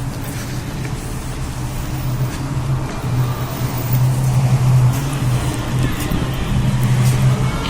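City street traffic, with a motor vehicle's engine giving a steady low hum that grows a little louder about halfway through.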